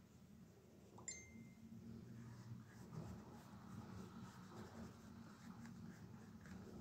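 Faint strokes of a paintbrush working paint onto paper, over a low steady room hum, with one short high ringing clink about a second in.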